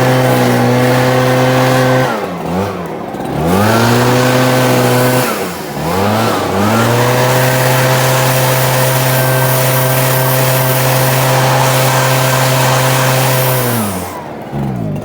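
Echo gas backpack leaf blower's two-stroke engine running at full throttle, blasting mouse-nest debris out of a riding mower's engine bay. The throttle is let off and brought back up twice, about two and five seconds in, and released near the end.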